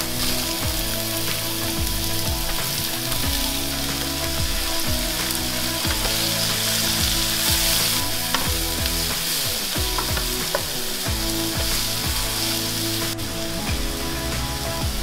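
Sliced mushrooms and onions sizzling in olive oil in a hot skillet, stirred now and then with a wooden spoon scraping across the pan.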